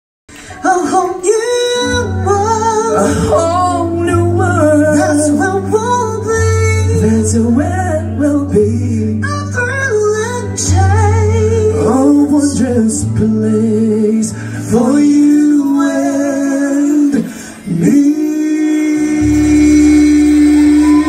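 Live band playing a song: a female and a male singer over electric guitar and bass, ending on a long held note.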